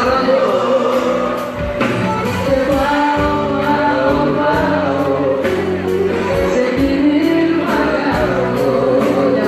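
A man and a woman singing a duet live into microphones over an amplified band, with a steady drum beat. The sound is recorded from among the audience in a large hall.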